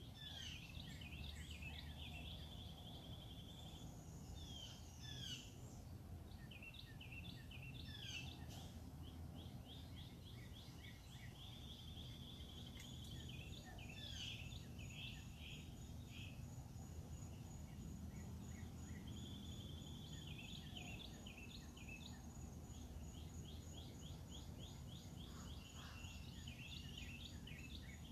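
Faint outdoor birdsong: several birds call and sing at once, with short chirps and repeated dry trills, over a low steady rumble. From about halfway on, a thin high pulsing note joins them.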